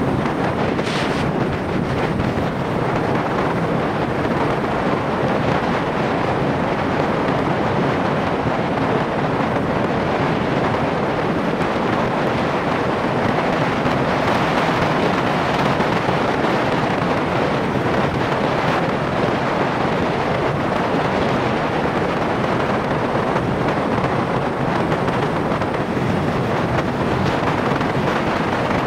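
Steady rushing wind noise on the microphone of a motorcycle riding at highway speed, with road and engine noise mixed in.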